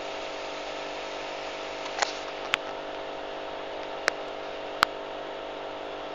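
Steady hum and hiss of running aquarium equipment, with four sharp clicks about two, two and a half, four and five seconds in.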